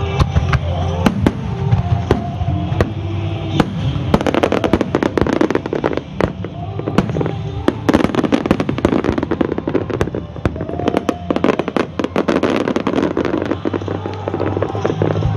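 Fireworks bursting in rapid, irregular succession with dense crackling, heaviest through the middle, while music plays alongside.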